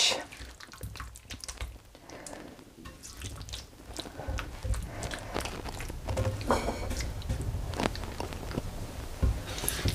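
A spatula stirring thick, wet tomato-tamarind masala and chicken around a tawa, making irregular wet squelches and scrapes against the pan. The strokes come more often from about four seconds in.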